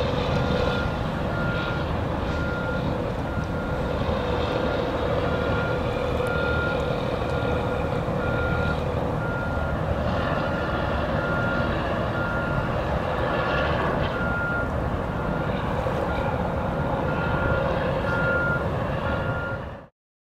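A vehicle reversing alarm beeps evenly, about once every three-quarters of a second, over a steady rumble of traffic and machinery. Everything cuts off suddenly near the end.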